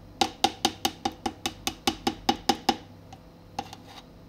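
Metal spoon knocking against the side of the cup while beating thickened homemade mayonnaise: about five quick, ringing knocks a second that stop a little under three seconds in, followed by a few faint taps.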